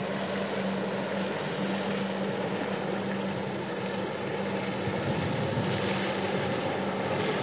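Engine of a barge passing on the river: a steady drone with a constant low hum.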